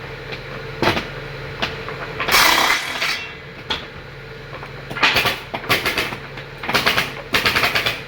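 Woodworking machine running with a steady hum, broken by loud noisy bursts of work on the wood, once about two seconds in and repeatedly through the second half.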